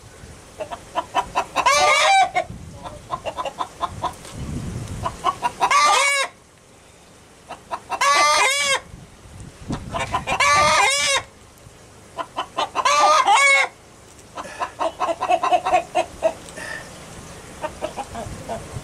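Backyard chickens: a rooster crowing about five times, one to three seconds apart, with softer short calls in between.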